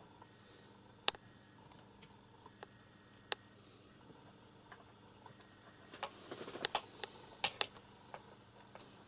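Kittens scuffling at play: a few sharp clicks, then a short flurry of clicks and rustling about six seconds in, over a low steady hum.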